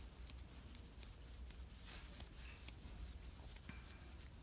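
Small screwdriver turning the tiny screw out of a toy RC airplane's plastic propeller hub: faint, scattered scratchy clicks and rubbing.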